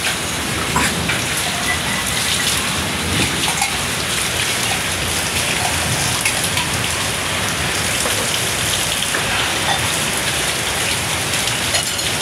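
Steady rain falling, with water streaming off the roof edge just above and many scattered sharp drip sounds.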